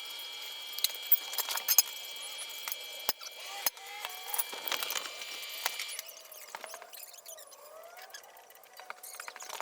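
Light metallic clinks and taps of tools and parts being handled, with a steady high whine during the first six seconds or so.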